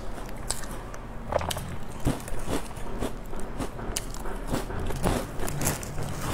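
Crisp crackers being bitten and chewed close to the microphone: a string of sharp, irregular crunches.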